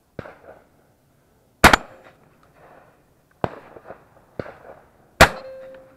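Two loud shotgun shots from the gun-mounted Browning Fusion Gold, about three and a half seconds apart, each with a short echo. Fainter bangs come before and between them.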